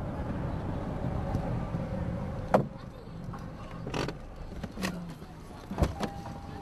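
Inside a car's cabin: engine and road rumble as the car pulls up, then a sharp click about two and a half seconds in, after which the rumble drops away. Several clicks and knocks of handling in the cabin follow, and near the end a steady electronic warning tone starts.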